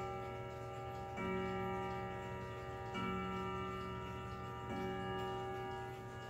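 Howard Miller Jennison pendulum wall clock striking the hour, the hands standing at twelve: three slow, evenly spaced strokes about two seconds apart, each ringing on until the next, with the clock's ticking underneath.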